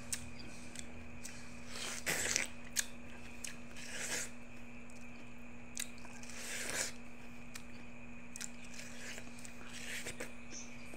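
A person biting into and chewing a slice of watermelon, several bites a couple of seconds apart. A faint steady hum runs underneath.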